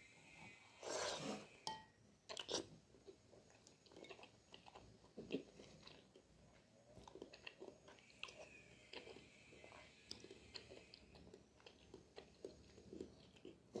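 A person slurping thick jjajangmyeon noodles in black bean sauce about a second in, then chewing them wetly with small mouth clicks.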